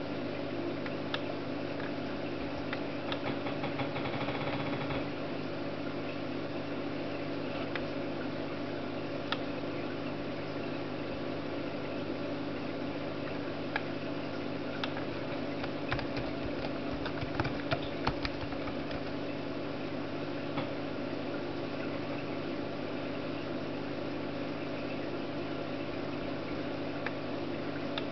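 Steady mechanical hum with a few constant low tones and a hiss, broken by scattered light clicks, with a quick run of them about two-thirds of the way through.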